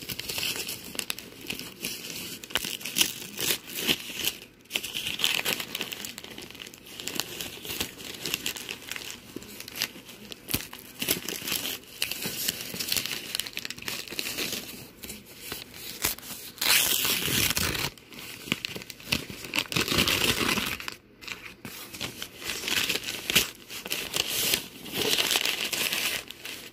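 Wrapping paper being crumpled and torn by hand as a parcel is unwrapped: continuous irregular crinkling, with louder rips now and then.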